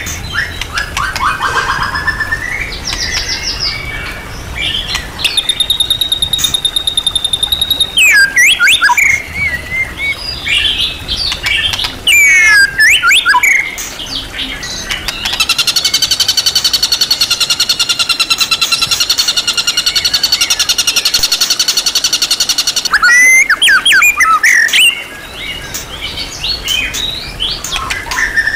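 White-rumped shama (murai batu) singing a varied song of sliding whistled phrases. It holds a steady high note about five seconds in, and runs a long, fast trill in the middle that lasts about seven seconds.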